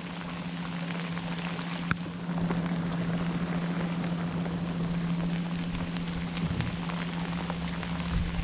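Heavy rain pouring down, an even hiss of drops, with a steady low hum underneath and one sharp click about two seconds in.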